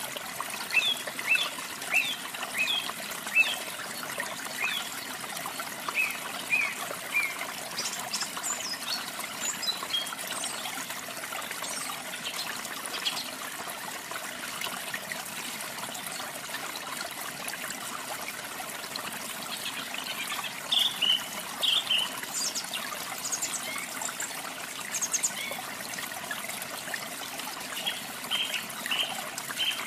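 Steady trickling water with canaries chirping over it in short runs of quick high notes, near the start, around the middle and again near the end.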